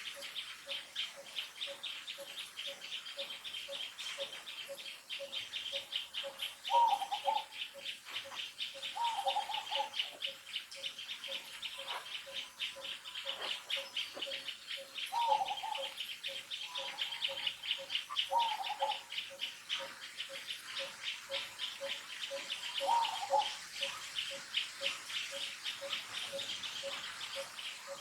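Outdoor natural ambience: a steady high insect buzz, with a bird repeating one low note about twice a second. A handful of short, falling calls stand out over it.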